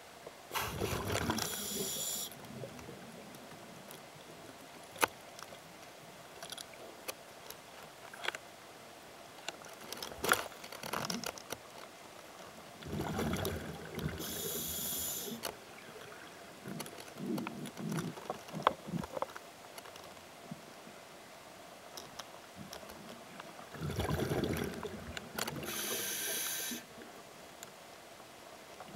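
Scuba diver breathing through a regulator: three breaths about 11–12 seconds apart, each a hiss and a rush of exhaled bubbles. Scattered faint clicks and crackles fill the gaps between breaths.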